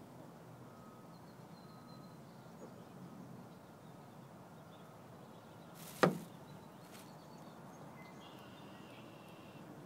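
A single sharp knock about six seconds in, over a faint, steady background.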